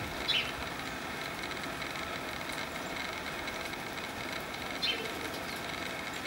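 Steady outdoor background noise like distant traffic, with two short high-pitched chirps, one just after the start and one about five seconds in.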